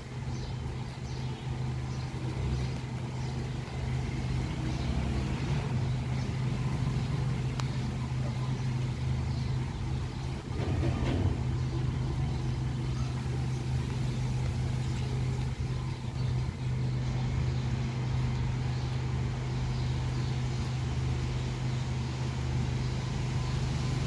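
Strong wind gusting through leafy trees and buffeting the microphone, with a steady low hum underneath.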